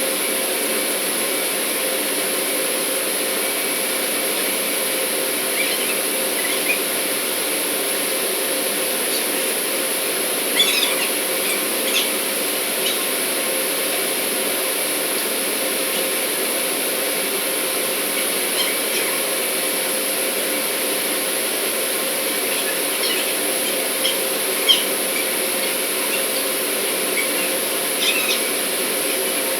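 Steady drone of running industrial machinery with a constant hum and a high whine, and a few light clicks and clinks scattered through it.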